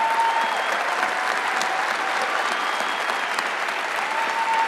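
Large audience applauding, with a few long cheers held above the clapping near the start and again near the end.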